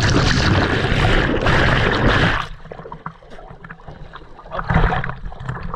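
A person jumping into cold spring water: a loud splash and churning water that dies away about two and a half seconds in, then softer sloshing with a brief surge near the end.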